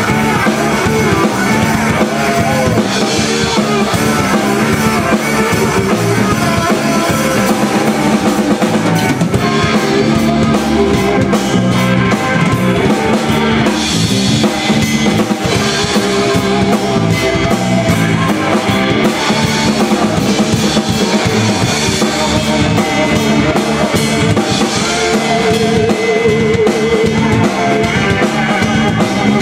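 Live blues-rock band: electric guitar, bass guitar and drum kit playing together, loud and continuous, with no singing.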